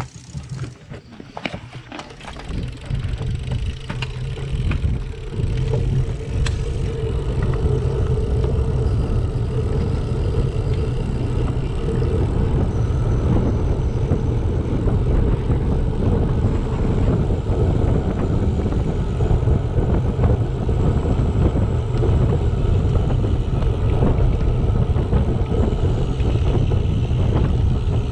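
Wind buffeting the microphone of a GoPro Hero7 mounted on a moving road bike: a low rumble that builds over the first few seconds as the bike gathers speed, then holds loud and steady. A few clicks come at the very start.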